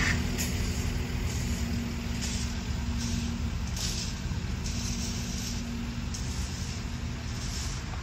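Street traffic: a steady low rumble of motor vehicles with an engine hum, and short hissy swishes recurring about once a second.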